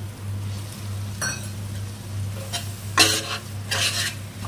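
Steel spatula stirring and scraping wet tomato masala around a kadai, with the masala sizzling in the pan. There are a few metallic scrapes with a slight ring, loudest about three seconds in, over a steady low hum.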